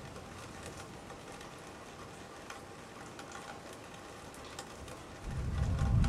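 Steady rain pattering, with scattered drips ticking. Near the end a loud low rumble swells up suddenly.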